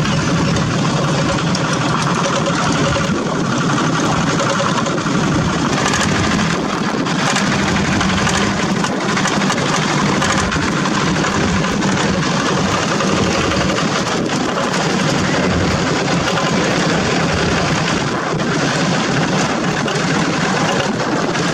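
Several two-wheel walking tractors' single-cylinder diesel engines running together in a convoy, a loud, steady engine drone with a few short knocks standing out.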